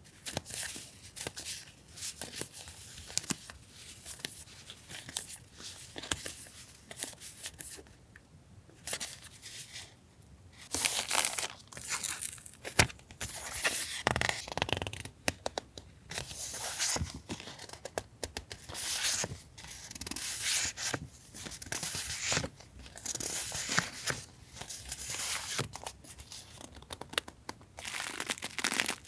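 Paper packaging being unwrapped and handled during an unboxing of stationery: irregular crinkling and rustling with short louder rips and taps, busier after the first third.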